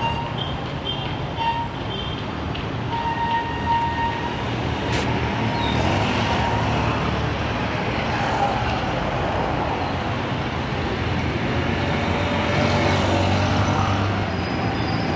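Busy street traffic dominated by small motorcycle-taxi engines running and passing close by, over a steady low rumble. Short horn beeps sound several times in the first few seconds.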